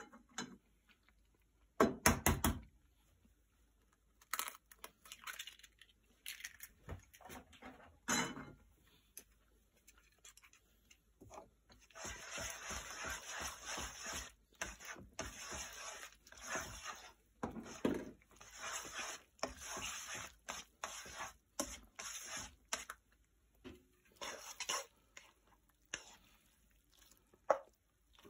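A utensil stirring spaghetti and raw egg in a nonstick frying pan. First come scattered clicks and knocks against the pan, then about ten seconds of quick, wet scraping strokes in the middle, and a few more taps near the end.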